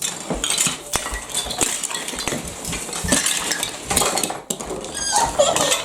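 Dishes and cutlery clattering and clinking as plates are handled and knocked together, a rapid irregular series of sharp clinks.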